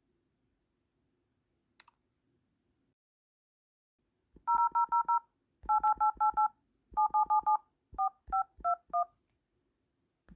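Phone keypad touch tones as a number is dialled: about eighteen short two-tone beeps in quick runs of four or five, the last few spaced out, after a single click.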